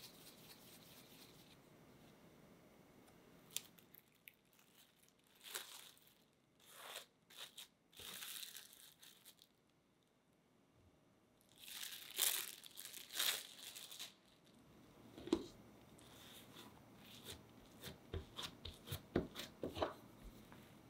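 Plastic cling film pulled off its roll, torn and crinkled as it is stretched over the dough balls, in several hissy crackling bursts. In the last few seconds this gives way to light knocks and taps as a rolling pin is set down and rolled over dough on the counter.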